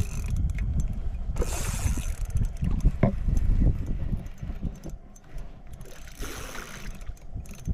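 Small inflatable boat on the water: irregular low knocking and water splashing against the hull, with two short spells of hiss.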